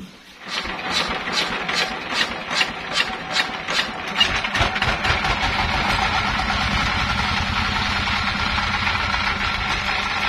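The sawmill's stationary engine starting up. For the first few seconds there is a rhythmic chuffing, about two to three beats a second; about four seconds in it settles into steady running.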